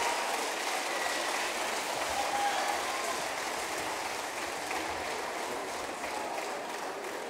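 Audience applauding in a hall, a dense, steady clapping that slowly dies down.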